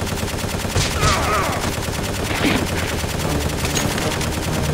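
Rapid, unbroken machine-gun fire, a dubbed automatic-gunfire sound effect rather than the sound of a toy blaster.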